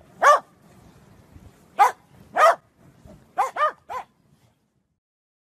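A corgi barking: six short, high barks, one after another and then a quick run of three, stopping about four seconds in.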